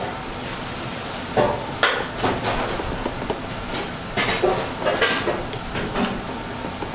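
A spoon knocking and scraping against an aluminium sauté pan as penne are stirred through their sauce. The clatters are irregular, beginning about a second and a half in, over a steady background hiss.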